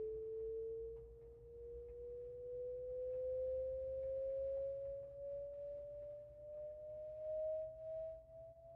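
Slow sine-wave test sweep rising steadily from about 440 Hz to about 690 Hz, played by an exciter driving a loudspeaker cabinet lined with 80 mil sound deadener pads and picked up right on the back panel. It swells and dips in loudness as it passes the cabinet's panel resonances, which become audible from about 400 Hz.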